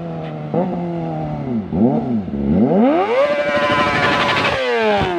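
Kawasaki Ninja ZX-25R's high-revving 250 cc inline-four engine at full throttle as the bike approaches and passes close: the revs dip briefly twice, climb to a high, held wail, then the pitch drops away as it goes by.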